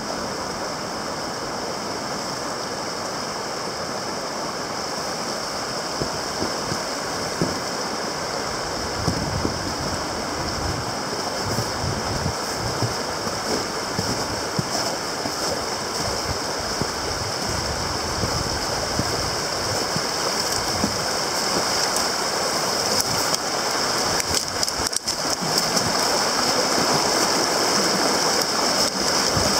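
River rapids rushing steadily over shallow rocks, the sound growing somewhat louder over the last several seconds.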